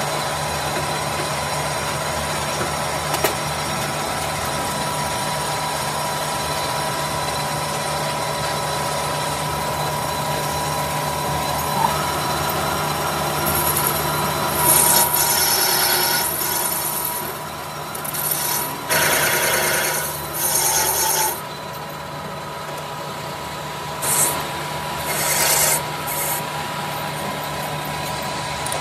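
Metal lathe running steadily while its cutting tool turns a rough cast brake-cylinder body, with several harsh scraping bursts of cutting from about halfway through and two more shorter ones near the end.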